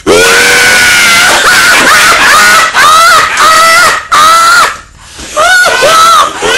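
Loud, high-pitched human screaming: one long held shriek, then several shorter cries with brief breaks between them.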